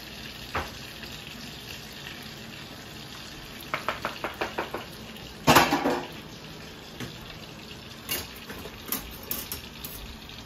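Steady sizzle from a pan of chicken thighs just taken off the burner. Over it come a quick run of small clicks, then a louder clatter of kitchenware about halfway through, and a few light clicks near the end.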